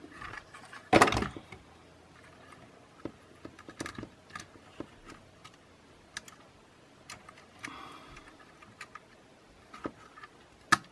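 Small scattered clicks and taps of hands handling a DJI Mavic Air 2 drone body and pressing ribbon cables and connectors onto its circuit boards. There is one louder knock about a second in and a sharp click near the end.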